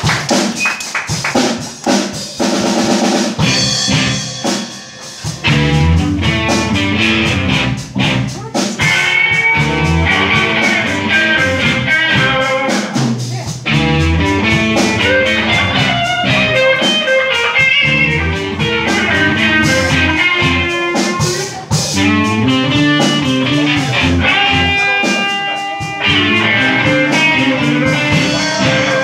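Live rock band playing: electric guitars, electric bass and a Yamaha drum kit. Sparser drum hits and guitar at first, with the full band coming in about five seconds in.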